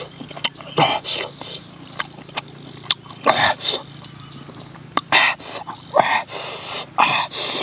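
Wet chewing and lip-smacking as a man eats cooked eel with his fingers, in short irregular clicks and smacks. Underneath is a steady, high-pitched drone of insects.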